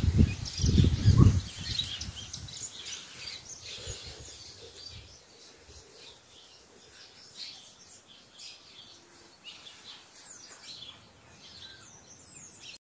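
Small birds chirping and singing in many short, quick calls. In the first second and a half a few low thumps rumble over the microphone, and the birdsong then carries on faintly.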